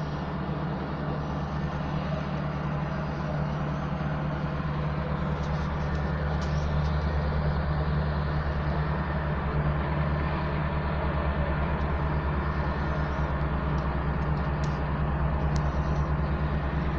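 Diesel engine of heavy road-building machinery running steadily, a deep even hum that gets a little louder a few seconds in.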